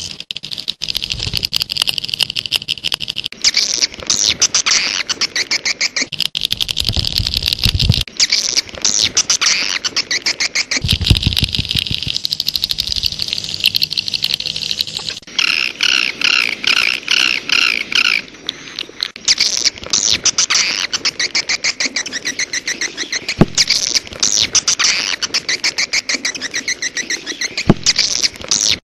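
Swiftlets twittering: dense, rapidly repeated high chirps in stuttering trains, of the kind played as a lure to call wild swiftlets. Two short low rumbles come in the first half.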